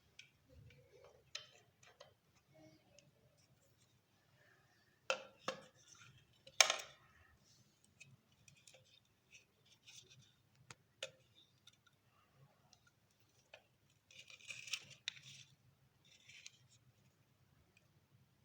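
Faint handling noises: scattered clicks and light knocks of small hard objects being picked up and set down, with a few sharper knocks about five to seven seconds in and a short rustle a little after two-thirds of the way through.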